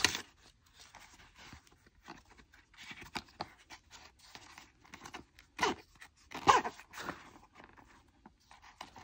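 Paper insert and nylon pouch rustling and crinkling as they are handled and unwrapped, in scattered short rustles with two louder ones a little past the middle.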